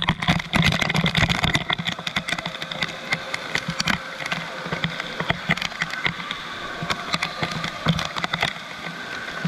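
Indoor water park din: a steady roar of rushing water with many short, sharp splashes and knocks.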